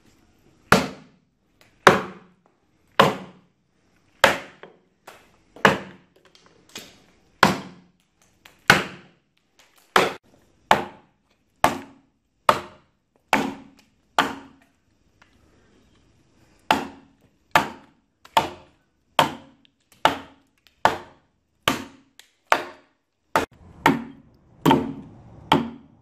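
Axe blows biting into an oak trunk, roughly one a second, as a flat face is hewn into the log. A pause of about two seconds just past halfway, then quicker blows near the end.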